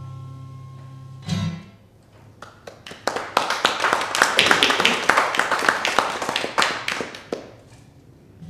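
The last chord of an acoustic guitar rings and fades, and another chord is struck about a second in. Then an audience applauds for about five seconds, fading out near the end.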